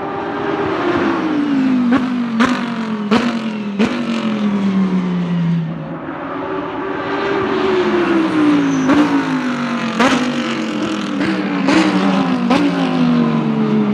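GT3 race car's V10 engine on track: the engine note falls for several seconds as the car slows, with sharp cracks from the exhaust at each downshift, rises again about six seconds in under acceleration, then falls once more with further cracks.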